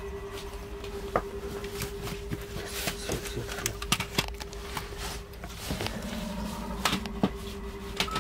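Scattered clicks, knocks and rustles of someone moving about and handling things in a small room, over a steady low hum.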